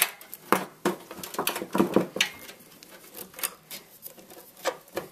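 Computer power-supply cables and plastic connectors being handled and fumbled, giving a string of irregular small clicks, taps and rattles.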